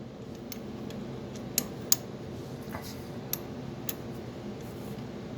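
Scattered light metallic clicks and ticks as a bolt is taken out of the steering shaft coupling, the two sharpest close together about one and a half to two seconds in, over a steady low background hum.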